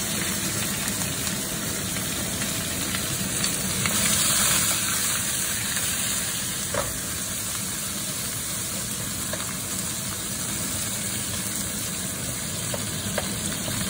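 Chicken pieces sizzling in hot oil in a wok as they brown, stirred with a wooden spoon that scrapes against the pan now and then.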